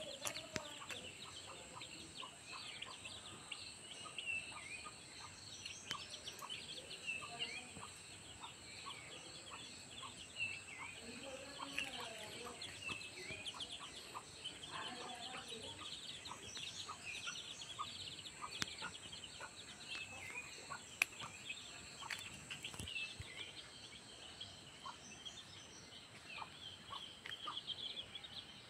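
Hen's chicks peeping constantly in short, high chirps, with the mother hen's lower clucking calls in the middle stretch.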